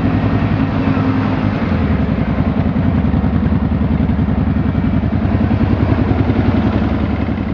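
ATV engine running close to the microphone, its rapid firing pulses steady throughout; the engine note drops to a lower pitch about one and a half seconds in.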